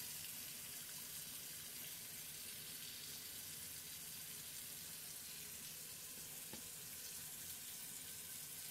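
Kitchen faucet running a steady stream of water over kale into a stainless-steel sink, heard faintly as an even hiss.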